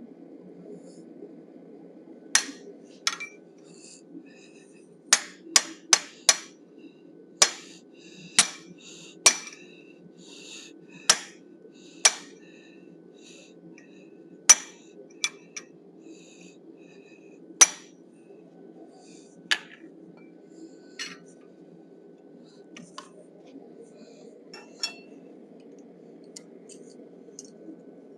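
Hammer blows on a 1/2-inch necking tool held against the steel of a forged bison head on an anvil: sharp metallic clinks at irregular intervals, about fifteen of them, thinning out to a few fainter taps in the last third.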